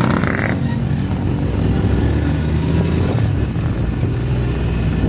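Engine of a moving road vehicle running steadily at cruising speed, with wind and road noise over it.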